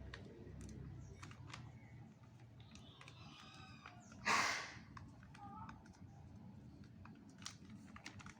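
Scattered light clicks and taps of small parts and packaging being handled, with one brief, loud rustle about four seconds in.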